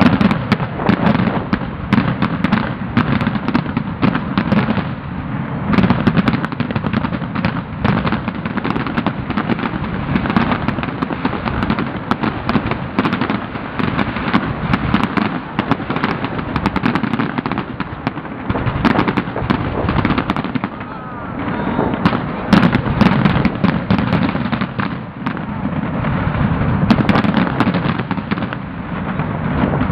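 Fireworks display: a dense, unbroken barrage of bangs and crackling.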